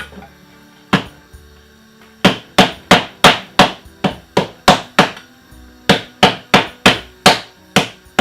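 A knife chopping hard on a cutting board: one knock, then two quick runs of heavy chops at about four a second.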